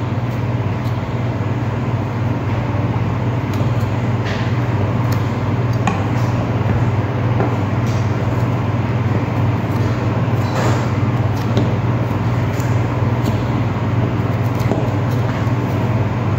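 A steady low hum over a constant background noise, with a few faint clicks from a knife paring the peel off a lime over a cutting board.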